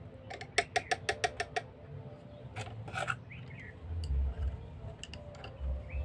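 Small screwdriver working at a bulb lamp holder's terminal screws: a quick run of sharp, slightly ringing clicks, about seven in a second and a half, then a few scrapes. Dull low thumps of handling follow in the second half.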